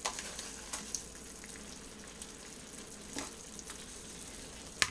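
Seafood stew of tomatoes, fish and cheese sizzling and simmering in a skillet on a gas burner, a steady hiss with a few soft ticks as shrimp go into the pan. A sharp click near the end.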